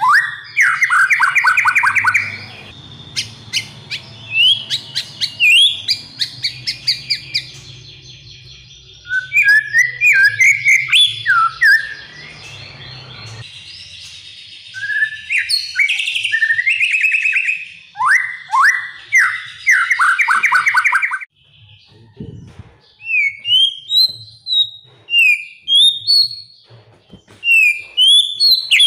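White-rumped shama (murai batu) singing a loud, varied song of rapid runs of repeated notes and sweeping whistles. After about two-thirds of the way through, this gives way to short, separate whistled phrases about once a second.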